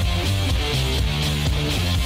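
Rock music with guitar, running steadily at full volume.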